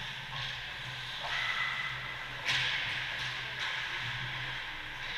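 Ice hockey play in an arena: a steady hiss from skates on the ice over a low, even hum. About two and a half seconds in comes a sharp crack, then two lighter clacks soon after.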